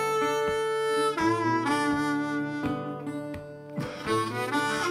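Background music: a slow tune of long held notes over a steady low drone, with a brief quieter stretch near the middle.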